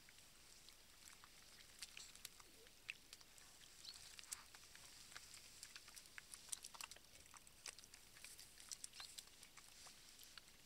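Faint, scattered ticks and patters from wild boar piglets stepping and rooting in wet mud, over near-silent open-air background.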